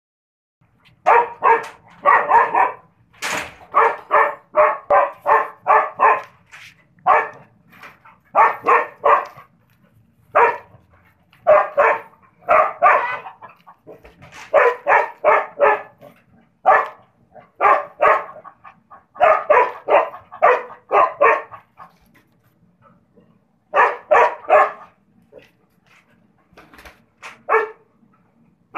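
Dog barking in quick runs of several barks at a time, with short pauses between the runs.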